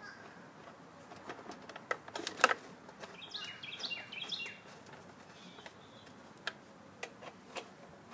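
Light clicks and knocks of a plastic recoil starter housing being handled and seated onto a Briggs & Stratton mower engine, the sharpest knock about two and a half seconds in, with a few more isolated clicks near the end. A bird chirps briefly in between.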